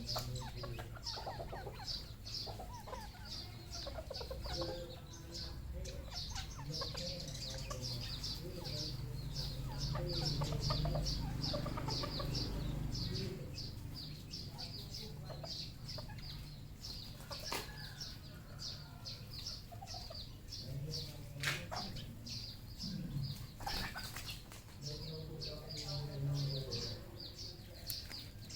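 Red junglefowl clucking, over a fast, even high-pitched chirping at about three to four a second. A few sharp clicks come in the later part.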